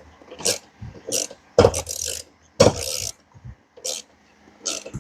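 Hand ratchet wrench clicking in repeated short strokes, about one or two a second, as a tight bolt is backed out.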